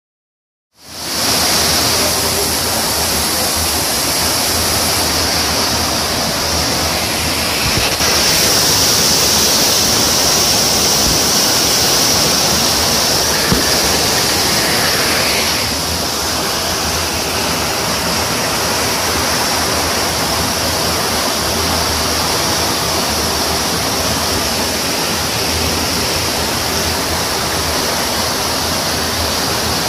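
Muddy floodwater rushing in a torrent along a roadside channel. It comes in about a second in as a steady, loud rush, a little louder for several seconds in the middle.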